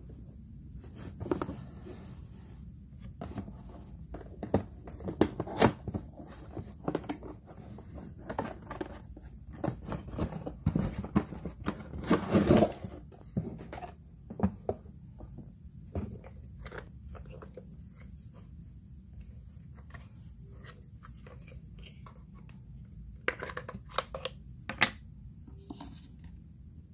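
A cardboard toy box and its packaging being opened and handled: rustling, scraping and tearing with many short clicks and knocks, busiest in the first half. Later come sparser knocks and clicks as a hard plastic toy is turned over in the hand.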